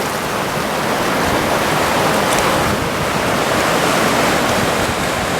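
Ocean surf washing onto a sandy beach: a steady rush of breaking waves that swells a little through the middle.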